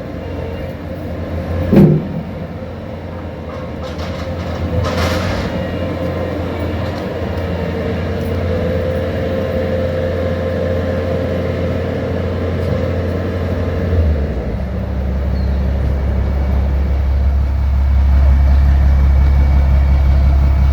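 A motor engine running steadily with a low hum that gets louder and deeper about fourteen seconds in, with a short sharp sound about two seconds in.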